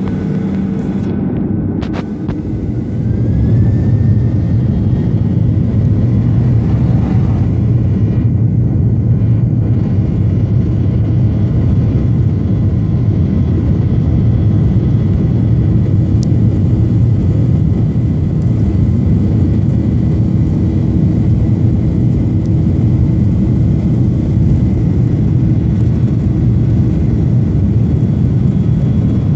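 Airliner jet engines spooling up for takeoff: a short rising whine, then a loud, steady low rumble as the thrust comes up for the takeoff roll.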